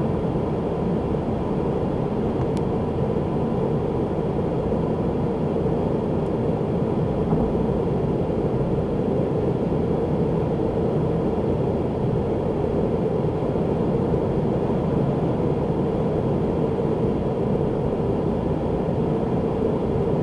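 Steady road and engine noise inside a car's cabin cruising at about 100 km/h on a freeway, picked up by a windscreen dashcam.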